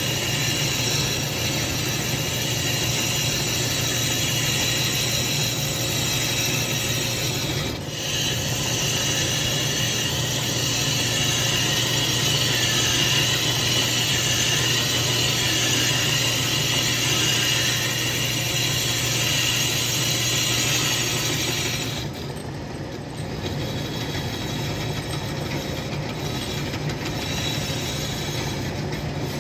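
Metal lathe running and turning a metal blank for a chainsaw cylinder head: a steady motor hum under the hiss of the tool cutting. About 22 seconds in the cutting hiss drops away and the lathe runs on more quietly.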